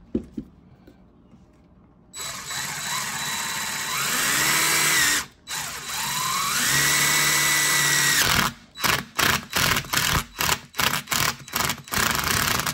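DeWalt cordless drill-driver driving a screw into the old pinion oil seal of a Triumph TR4 differential, to pull the seal out. The motor spins up twice, rising in pitch each time and then holding, with a brief stop between. Near the end it turns in a rapid series of short trigger bursts as the screw bites.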